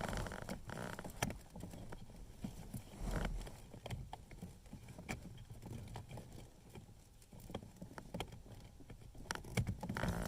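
Irregular clicks, taps and rustles of hands working among dashboard wiring and plastic while a three-pin turn signal and hazard flasher relay is pushed into its socket.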